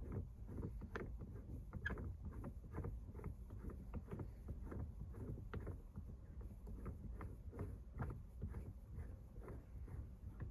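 Faint, repeated rubbing and clicking, several strokes a second, of a shift knob being twisted by hand off the threaded lever of a TR6060 six-speed manual shifter.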